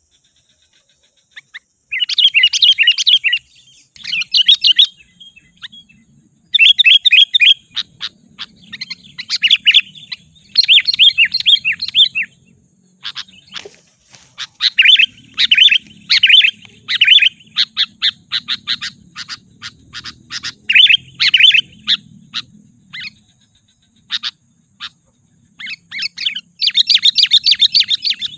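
Sooty-headed bulbul singing: repeated bursts of quick, chattering notes, each phrase a second or two long, with short pauses between.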